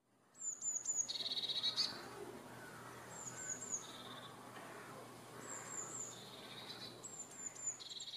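Blue tit singing: about four phrases, each of two or three high, thin falling notes followed by a lower, rapid trill.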